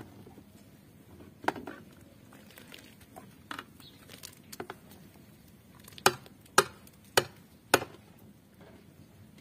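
A series of sharp knocks, a few scattered at first, then four loud, evenly spaced knocks about two a second.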